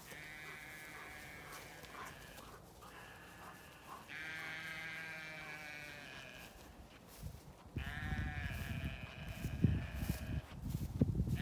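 Zwartbles sheep bleating: three long, drawn-out calls one after another. A low rumbling with thumps joins over the last few seconds and is louder than the calls.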